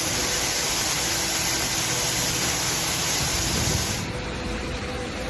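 Steady rushing noise of water in a flash flood, a loud even hiss that turns duller and a little quieter about four seconds in.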